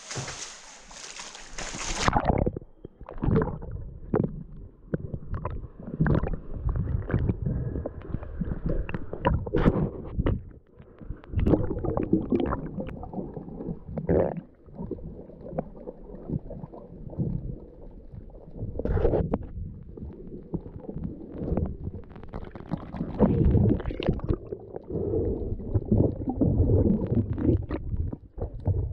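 Muffled underwater water noise from a camera held below the surface: irregular low sloshing, gurgling and bumps as water moves around the camera.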